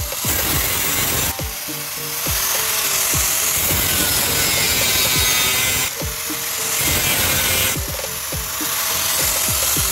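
Angle grinder with a thin metal cut-off disc cutting through a square steel tube: a loud, steady grinding hiss that dips briefly three times as the disc eases off or is lifted.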